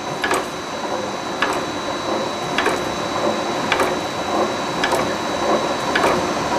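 LD-8 three-roller cold tube rolling mill running: a steady mechanical clatter of its gears and roll stand, with a sharp click about once a second and a thin high whine.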